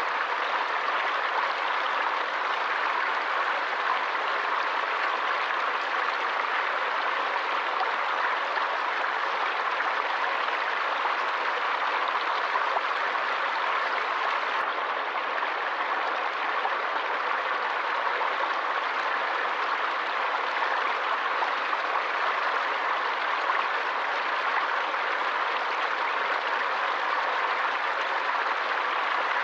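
Forest stream flowing: a steady, even rush of water.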